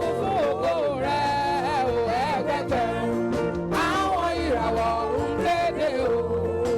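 Live gospel band music: a wavering, sliding melodic line over steady bass and drums.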